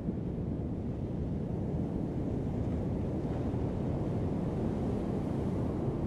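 Heavy ocean surf breaking and rolling onto a sand beach: a steady low rumble of waves.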